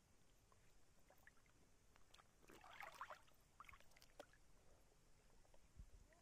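Faint water splashing and dripping as a fishing net is worked in a river, with a louder splash about three seconds in.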